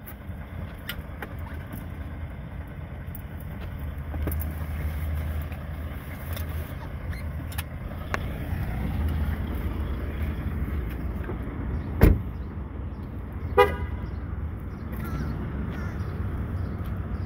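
Low rumble inside a parked car, then a car door slamming shut about twelve seconds in, followed a moment later by a brief car-horn chirp.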